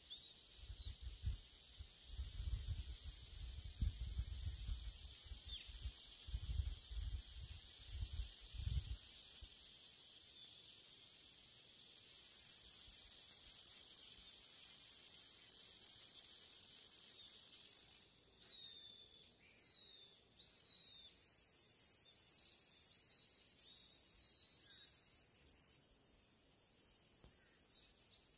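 A chorus of insects buzzing in a steady high pitch. It drops away and comes back a few times. In the first third there is an irregular low rumble. From about two-thirds of the way in, a bird gives a few short falling chirps.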